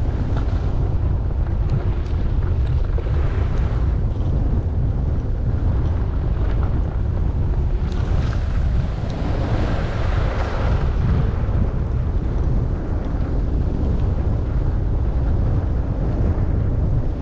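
Wind buffeting the microphone of a skier moving downhill, a steady low rumble, over the hiss of skis sliding on snow. The hiss swells for a few seconds around the middle.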